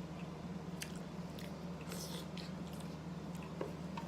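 A person chewing and biting into a mouthful of egg in sauce, with short wet mouth clicks and smacks scattered through and a busier bite about halfway. A steady low hum runs underneath.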